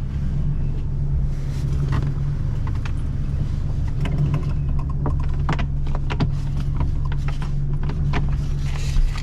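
A steady low mechanical hum, with scattered knocks and clicks throughout.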